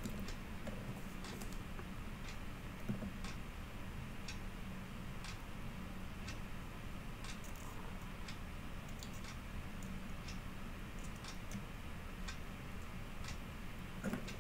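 Faint regular ticking, about once a second, over a steady low hum.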